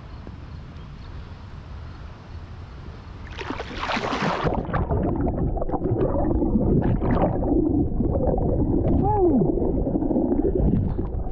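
Creek water rushing steadily, then a sudden loud splash about three seconds in as a person goes into the creek, followed by muffled sloshing and gurgling water.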